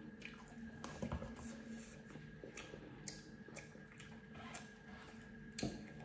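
Close-up mouth sounds of someone slurping and chewing cup noodles, with a few soft clicks and a louder knock near the end.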